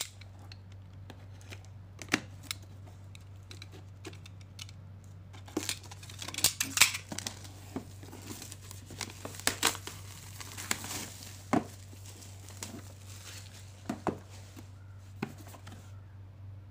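Plastic shrink-wrap on a cardboard box being slit with a snap-off utility knife and peeled away: irregular crackling, crinkling and tearing, busiest in the middle stretch, over a low steady hum.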